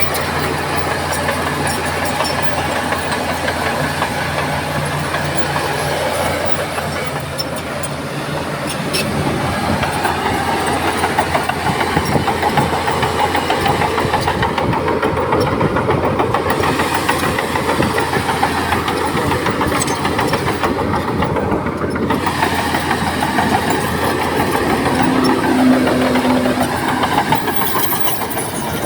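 Bulldozer's diesel engine running, steady and even at first, then louder and rougher from about eight seconds in.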